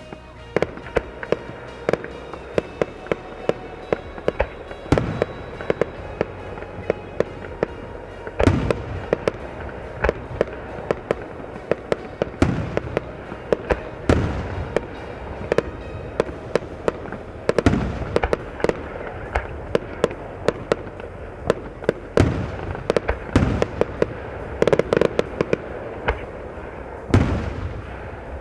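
Fireworks display: a dense barrage of sharp cracks and crackle, with heavier booms from shell bursts every few seconds.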